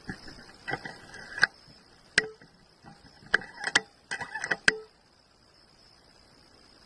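Sharp clicks and short metallic rattles from a Vortex air rifle being handled and cocked. They come in two clusters with a single click between them.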